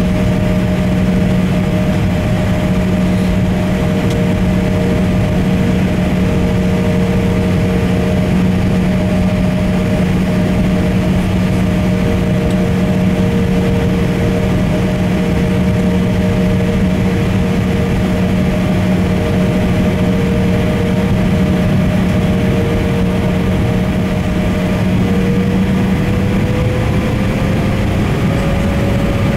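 Cabin noise of an Embraer E170 taxiing with its General Electric CF34-8E turbofans at idle: a steady hum with a few steady whining tones. Near the end one of the higher tones rises slightly and the lowest one fades.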